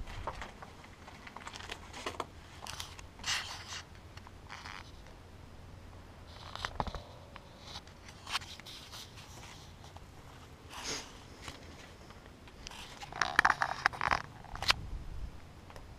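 Irregular crunching, scraping and rustling from a person walking over rubble and gravel in a stone tunnel, with clothing brushing against the camera. The steps and scuffs come unevenly, and a quick, louder run of them comes near the end.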